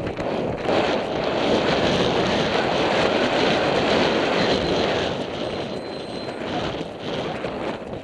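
Wind buffeting a helmet-mounted camera's microphone as a horse gallops cross-country, a loud steady rushing that eases after about five seconds.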